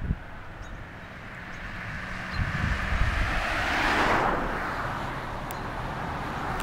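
A vehicle passing on the road, its tyre and engine noise swelling to a peak about four seconds in and then fading, with a few low thumps.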